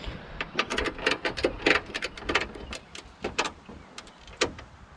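Metal clicks and rattles of a ratchet strap's buckle and hook being worked, with a quick run of clicks in the first couple of seconds and then a few scattered ones.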